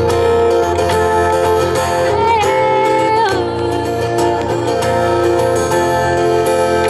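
A live pop song in Japanese: a woman sings into a microphone over an acoustic guitar, played through a PA. A long held note bends and then drops about three seconds in, with steady sustained notes around it.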